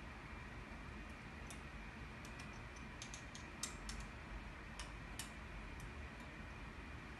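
Light scattered clicks and ticks of a hex key working the screws on a pump's metal upper end, over a faint steady background hum.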